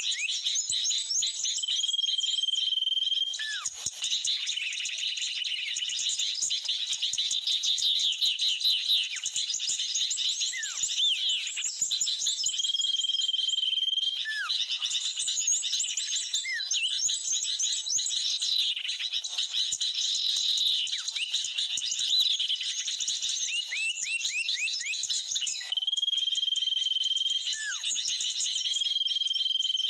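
Dense, unbroken chorus of bird chirps and twitters from an mp3 bird-lure call of noisy sooty-headed bulbuls (kutilang) mixed with small birds, played to draw birds onto glue sticks. A long, steady whistle comes back four times, with short falling whistles in between.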